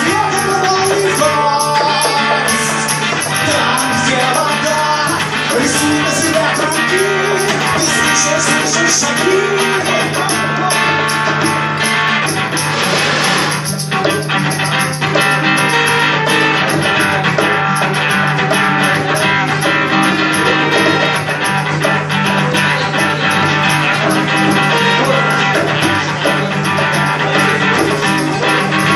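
Background rock music, guitar-led, playing steadily.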